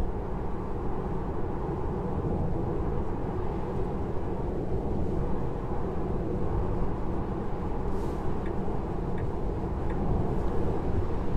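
Steady road noise inside a Tesla Model 3's cabin at motorway speed, around 100 km/h: the tyres running on wet asphalt, plus wind, with no engine sound. A few faint light ticks sit above it.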